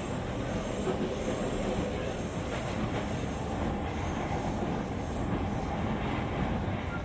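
Steady rumble of an E231-series electric commuter train heard from inside a motor car: wheels running on the track and car body noise, without marked changes.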